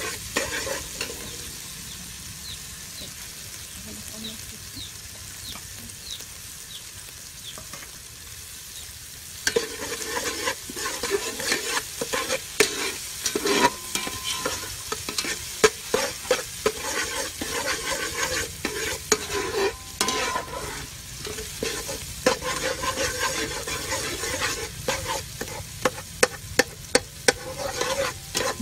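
Chopped aromatics sizzling in hot oil in a metal pot, stirred with a metal ladle. After a steady, quieter stretch, the ladle starts scraping and clinking against the pot in quick, loud strokes about a third of the way in.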